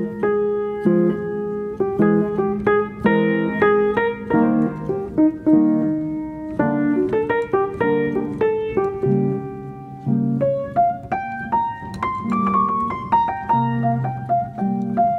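Background piano music: a melody of single notes over held lower chords.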